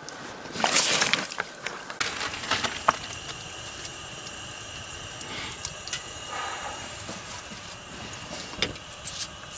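A brief loud crunching rustle about a second in, then hot oil sizzling steadily in a lidded frying pan of frying chebureki, with scattered sharp pops and crackles.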